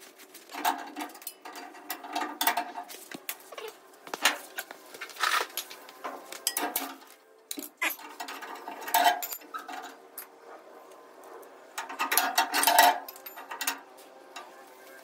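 Hand wrenches clinking and scraping against the steel U-bolts and leaf-spring hardware of a pickup's rear axle as the rusty bolts are loosened: irregular bursts of sharp metallic clicks with brief ringing, the busiest stretch near the end.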